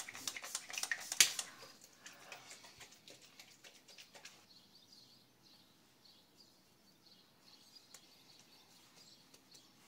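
A few sharp clicks and knocks in the first second and a half, then faint birds chirping.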